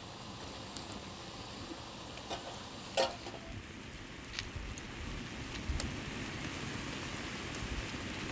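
Red pomegranate mixture boiling hard in a wide metal pan over a wood fire: a steady bubbling hiss that slowly grows louder. There is one sharp knock about three seconds in, and a few small ticks.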